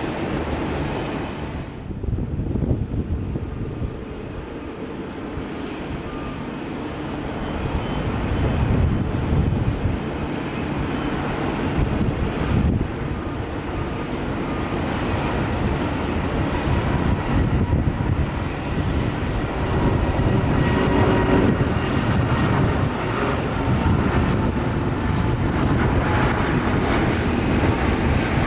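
A Boeing 787-9's jet engines (Rolls-Royce Trent 1000) at takeoff thrust: a deep, steady roar with a faint whine. It grows louder as the airliner rolls, lifts off and climbs overhead.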